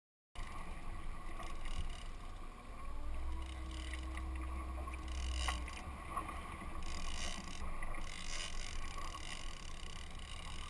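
Small fishing boat underway at sea: engine running with wind and water noise, a steady low rumble and hum that begin suddenly just after the start.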